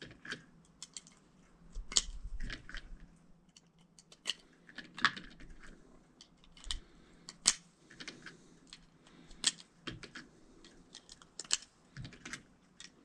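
9mm reloaded cartridges being pressed one at a time into a pistol magazine: a series of short, sharp clicks at uneven intervals.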